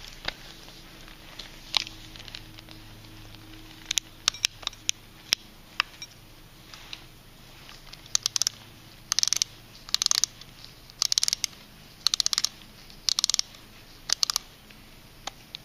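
Vintage mechanical alarm clock clicking: a few separate clicks, then from about halfway short bursts of rapid clicking roughly once a second.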